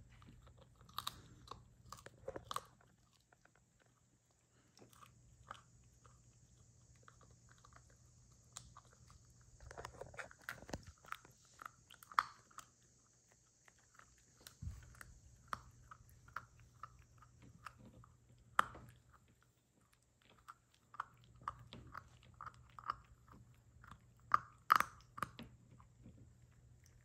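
A puppy chewing and gnawing on a hard chew: irregular crunches and sharp clicks in bursts, with short pauses between them.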